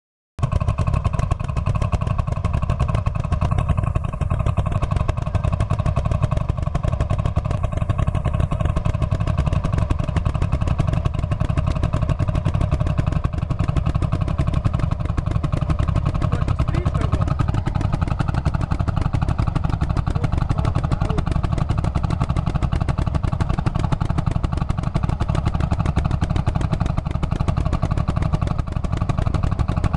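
Four vintage Landini tractors' single-cylinder hot-bulb two-stroke engines running steadily together under load, pulling a plough in tandem.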